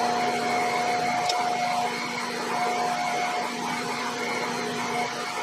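Steady mechanical hum of a running electric motor, with several held tones, dropping slightly in level about two seconds in.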